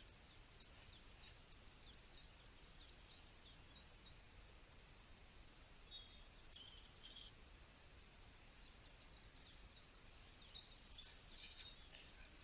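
Near silence with faint birdsong: a few runs of quick, high chirps.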